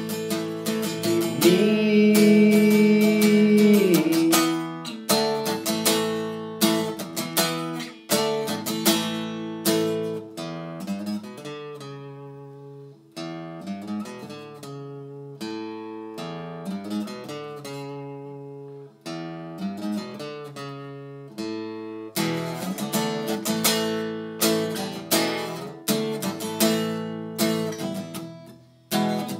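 Solo acoustic guitar playing an instrumental break. A sung note is held over the chords for the first few seconds. The strumming eases into a quieter, sparser picked passage in the middle, then comes back louder for the last several seconds.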